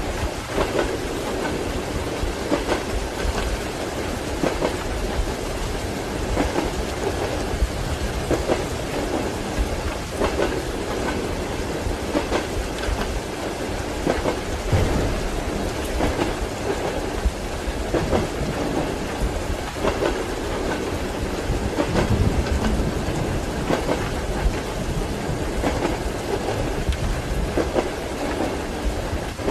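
Steady rain with low thunder rumbling, mixed with the clickety-clack of train wheels passing over rail joints every second or two.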